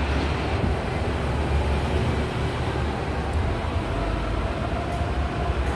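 Steady low rumble of a bus engine, with a faint steady whine joining in during the second half.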